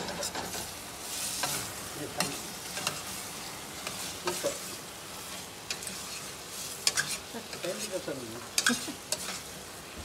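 A spoon stirring chicken with onion and tomato in a stainless steel pot, scraping and clicking against the metal, while the food sizzles as it fries.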